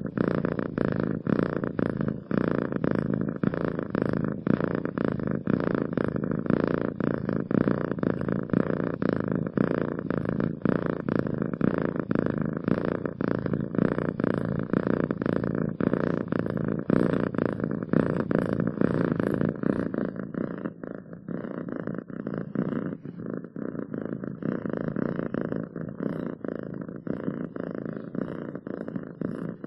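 Domestic cat purring steadily, a continuous fast-pulsing purr that gets a little quieter about two-thirds of the way through.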